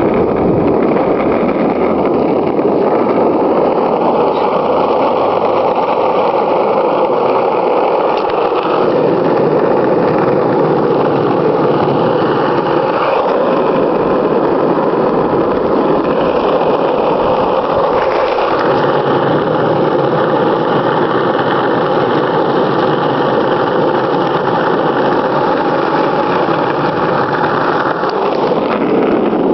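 Skateboard wheels rolling steadily over asphalt, a continuous rumble with no break.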